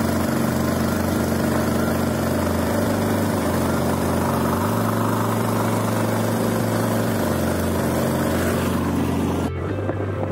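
Engine of a motorized wooden pirogue running steadily at speed, with water rushing and splashing along the hull. The sound drops away suddenly near the end, leaving a quieter, duller rumble.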